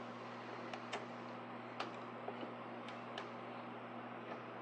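A few light, sharp clicks and taps, scattered about a second apart, over a steady low hum.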